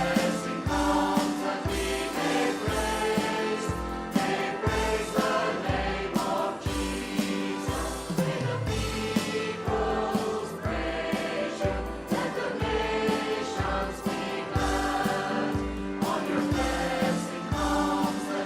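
A worship group singing a hymn with a praise band playing, over a steady beat.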